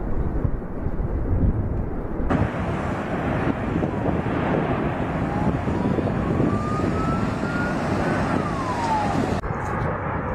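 Continuous low rumbling roar of the La Palma volcanic eruption, with abrupt changes in the sound at edits about two seconds in and near the end. A thin tone rises and then falls in the middle.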